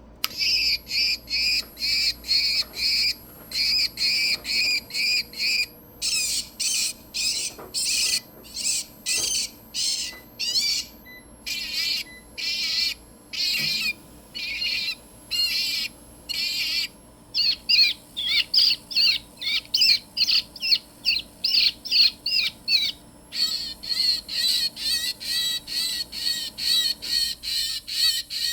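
Bird-X BirdXPeller Pro electronic bird repeller playing its recorded bird calls through its speaker, meant to scare pigeons, sparrows and starlings away. Each sound is a rapid run of shrill repeated calls, and the unit switches to a different call about every five or six seconds.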